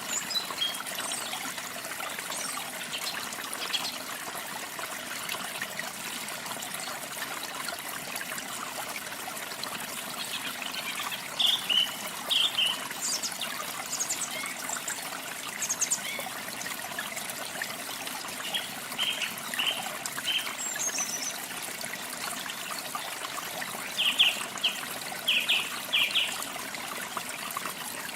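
Steady rushing of waterfall water, with songbirds calling over it in short, high chirps that come in clusters, loudest about eleven seconds in and again near the end.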